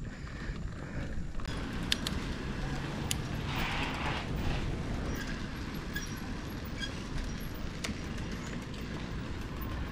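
Mountain bike rolling along city streets: a steady low rumble of tyres and wind on the action camera's microphone, with motor traffic passing and a few sharp clicks.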